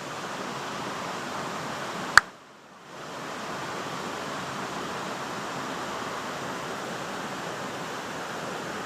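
Steady rushing of flowing water in a small stream. About two seconds in there is a single sharp click and the rushing briefly drops away, then carries on.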